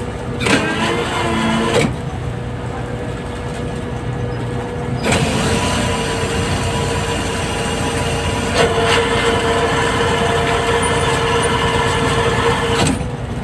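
Fishing vessel's engine running steadily, with a louder stretch of hissing from about five seconds in until near the end.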